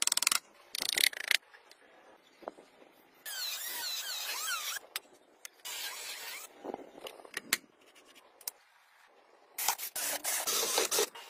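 Small electric drill in a wooden drill-press stand drilling holes in a grey plastic ring, in several short bursts. One longer burst, about three seconds in, carries a squeal of the bit in the plastic.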